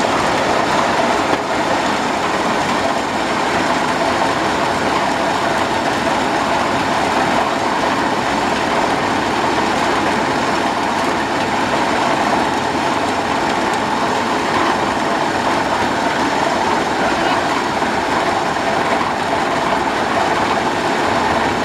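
Electric stainless-steel grape destemmer running steadily while grape bunches are tipped into its hopper and stripped from their stems. It makes a loud, even mechanical noise that does not let up.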